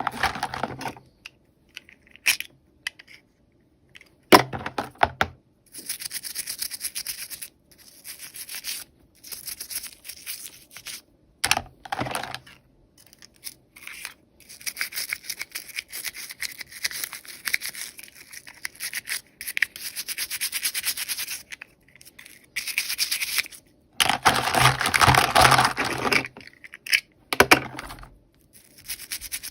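Hands rubbing, crinkling and tearing plastic toy packaging in stop-start bursts, with a few sharp clicks.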